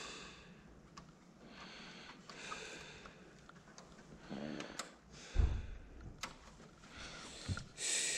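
Breathing and sniffing close to the microphone, with a few faint clicks from the front-panel buttons of an old CRT monitor being pressed, and a dull thump about five seconds in.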